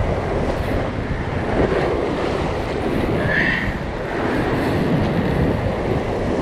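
Wind buffeting the microphone over ocean surf washing against the rocks: a steady rumbling noise.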